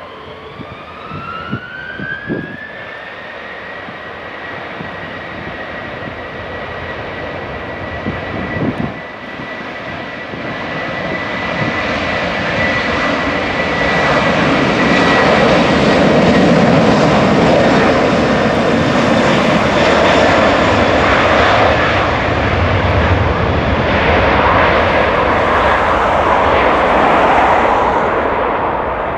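Airbus A330's twin jet engines spooling up to takeoff power: a whine rises in pitch over the first few seconds and then holds steady, while the engine noise swells to a loud roar as the airliner accelerates down the runway. A few low thumps are heard in the first ten seconds.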